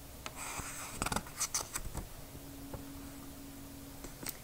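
Paper pages of a hardcover picture book being turned: a rustle with a few crisp flicks over the first two seconds, then quiet handling with a faint steady hum.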